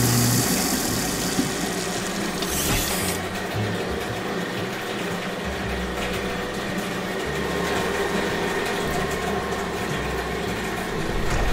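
Cartoon sound effects of a bottle-filling machine: a hiss of liquid filling the bottles that stops about three seconds in, then the steady mechanical running of the bottling line.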